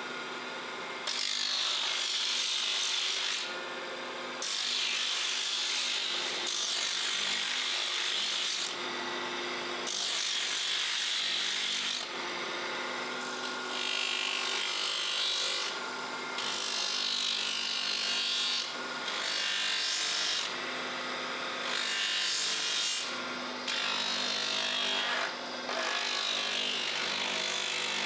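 Steel or wood pressed against a running power sander or grinder in about ten passes of two to four seconds each: a hissing, rasping grind over a steady motor hum that carries on between passes.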